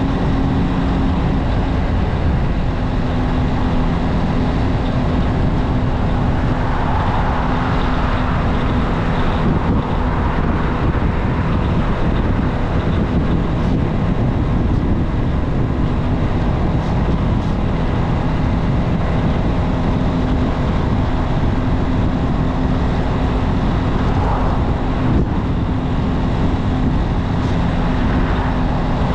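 Junak M12 motorcycle engine running at a steady cruising speed, its even engine note mixed with heavy wind and road noise.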